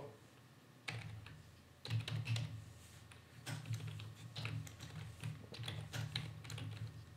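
Typing on a computer keyboard: quick key clicks in short runs with brief pauses, starting about a second in.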